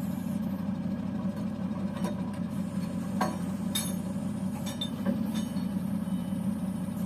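Truck engine running steadily to drive a truck-mounted crane's hydraulics while concrete well rings are unloaded, with a few sharp metal clinks between about two and five and a half seconds in.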